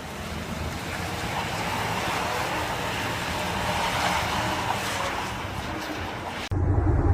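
Road vehicle noise: a steady rushing sound with a low hum. About six and a half seconds in it cuts off abruptly to a louder low rumble.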